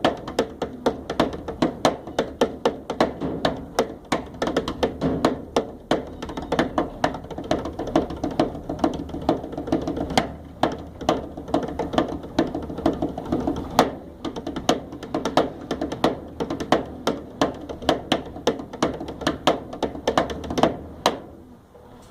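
Rhythmic percussion jam with a washing machine: a steady groove of quick taps and knocks, several strikes a second, that stops about a second before the end.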